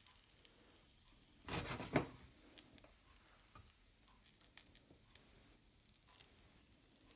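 Raviolis laid into a hot frying pan with a little olive oil, frying with a faint sizzle and light clicks of handling; a brief louder burst of sizzle about a second and a half in.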